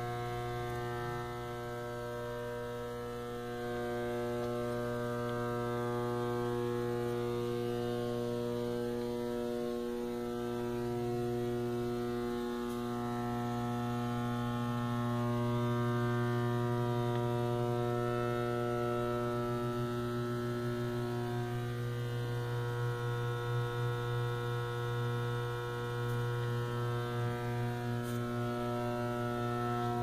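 A bank of electrical boxes humming from the mains: a steady, low electrical hum with a buzzy stack of overtones. It swells a little partway through and wavers quickly near the end.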